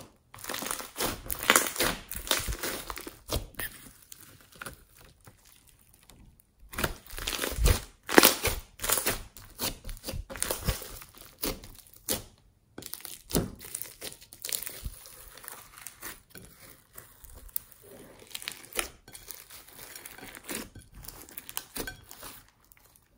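Hands squeezing and pressing beaded slime, a dense wet crackling and popping that comes in bursts, with two short silent breaks about six and a half and twelve and a half seconds in.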